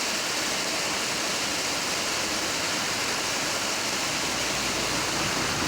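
Steady, even rush of flowing or falling water, unchanging in level.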